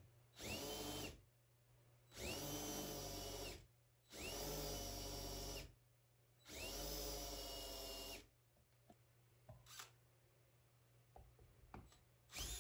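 Hand drill with a long bit boring into the end of a 6061 aluminum plate, run in four short bursts of one to two seconds, each spinning up with a rising whine and then holding steady. A few faint clicks follow near the end.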